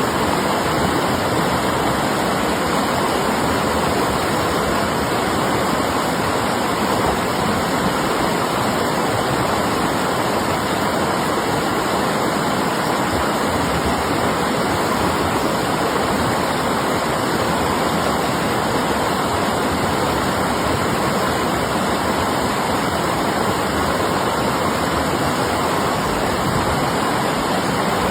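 River water rushing: a steady, unbroken noise of flowing water that doesn't change.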